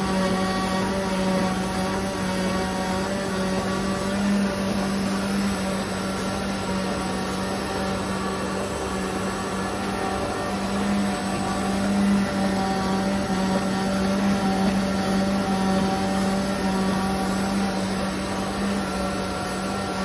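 Plastic corrugated-pipe production line running, with the corrugator's mould blocks forming white washing-machine drain pipe. It gives a steady machine hum with one strong low tone and fainter higher tones, over a constant mechanical whir.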